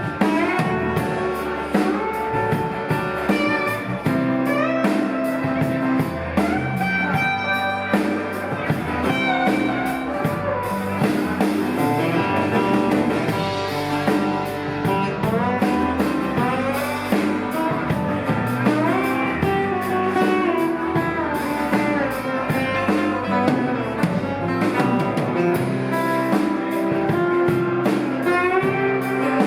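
Live blues band playing an instrumental passage, with lead guitar over bass and drums.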